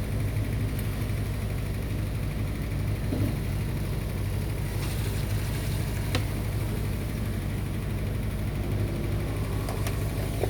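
Steady low electrical hum, unchanging in level, with a few faint clicks.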